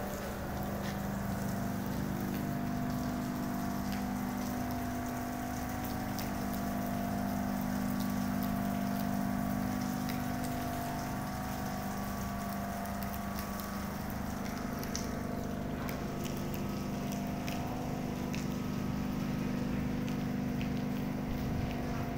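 Steady machinery hum from the dry dock, with several even tones under a hiss, and scattered light ticks throughout.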